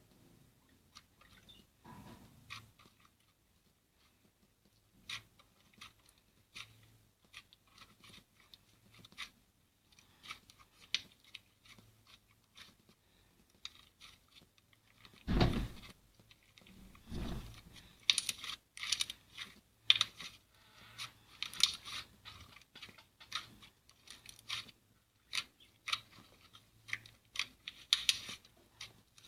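Slime being squeezed and poked: a run of sticky crackling clicks and pops, sparse at first and much denser in the second half, with two dull thumps around the middle.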